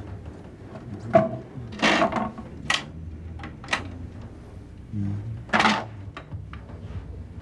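Clicks, knocks and a few short rustles of a vinyl record being handled and put on a record player.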